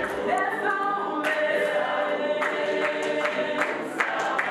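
A choir singing together in harmony without instruments. From about halfway through, a steady beat of sharp strokes, about three a second, keeps time with it.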